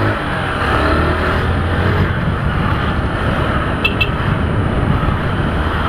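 Honda CG 150 Fan's single-cylinder four-stroke engine pulling away from a stop, its pitch rising for the first couple of seconds as it revs up, then running on steadily under road and wind rush.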